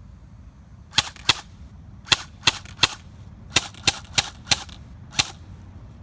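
Electric airsoft rifle firing about ten single shots in quick, uneven succession, sharp cracks roughly a third to two-thirds of a second apart.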